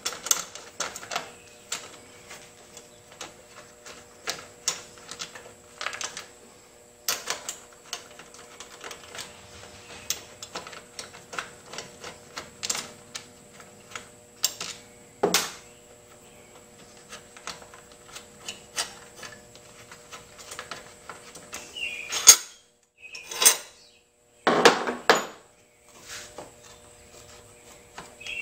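Plastic and metal clicks and knocks as the air filter housing is worked loose from a lawn mower engine by hand, with a few louder clatters near the end.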